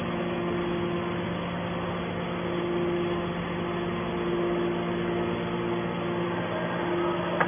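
Hydraulic scrap baler's power unit running with a steady hum: a constant low tone, and a higher tone that drops out and returns a few times.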